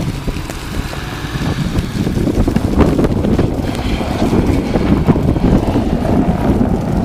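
Strong blizzard wind buffeting the microphone: loud, gusting wind noise that swells and eases.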